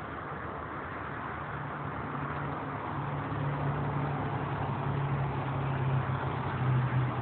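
Freeway traffic: a steady rush of tyre and engine noise from cars passing, with a low engine hum that grows louder from about three seconds in.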